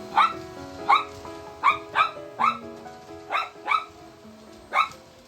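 Miniature schnauzer barking repeatedly, about eight sharp barks at an uneven pace, at a vacuum cleaner. Background music plays underneath.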